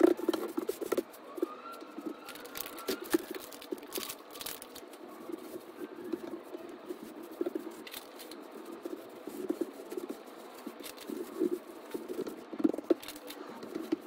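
A drawing stick scraping, scribbling and tapping on a large sheet of paper on a table, mixed with hands and a rag rubbing and smudging the marks, in uneven strokes with sharper clicks now and then. The strongest strokes fall at the very start and again near the end.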